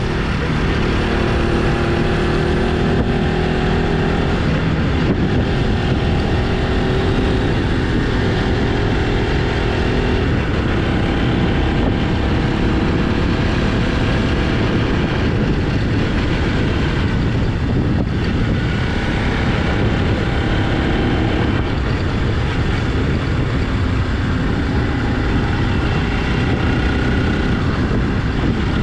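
Motorcycle engine running steadily while the bike is ridden, over heavy low wind and road rumble.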